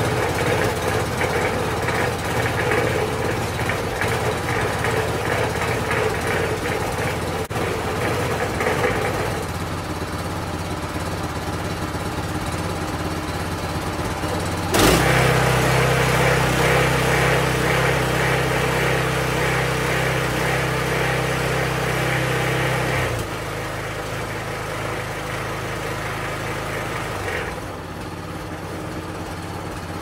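Brand-new Predator 212cc single-cylinder engine running on its stock muffler, its level shifting as the throttle is worked. It eases down about ten seconds in, jumps louder with a sharp click midway, and drops back in two steps near the end.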